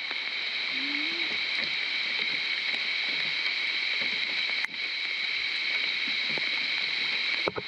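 Heavy rain falling on open lake water: a steady, even hiss, briefly broken a little over halfway through.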